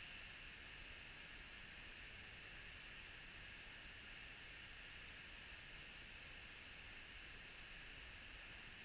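Faint, steady rushing of a creek: an even hiss with no separate sounds.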